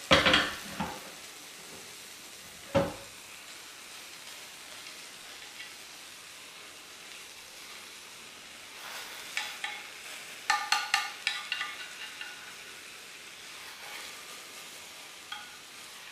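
Beaten egg sizzling steadily in a square tamagoyaki pan as a rolled omelette is cooked, with chopsticks tapping and clinking against the metal pan in a quick run around ten to twelve seconds in. Two sharp knocks of the pan, one at the start and one about three seconds in.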